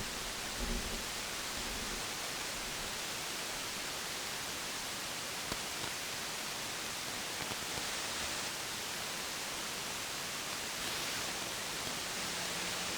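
Steady radio receiver hiss: static on an open channel while no station is transmitting.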